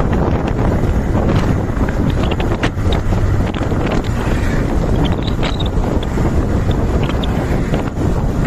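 Heavy diesel engine running steadily, with wind buffeting the microphone and scattered light clicks and knocks over it.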